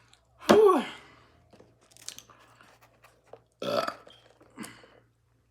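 A woman burping loudly about half a second in, with a second loud burst near four seconds. Wet chewing and lip-smacking sounds come between them.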